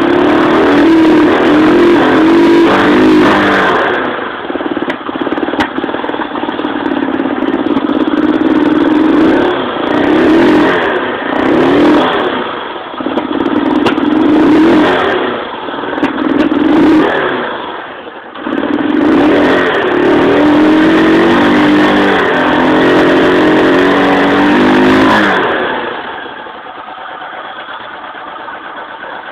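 Single-cylinder engine of a Kawasaki 250TR motorcycle revved again and again through its exhaust, the pitch falling and rising with each blip. Near the end it drops back to a quieter idle.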